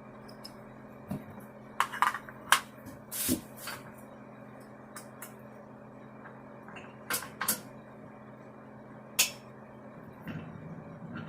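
Scattered metallic clinks and knocks of tools and bolt-on hardware being handled during assembly, over a steady low hum.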